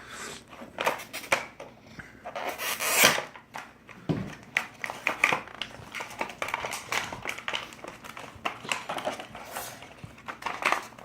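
Toy car's plastic blister pack and cardboard backing being pried and torn open by hand: a run of crinkles, clicks and rips, loudest about three seconds in.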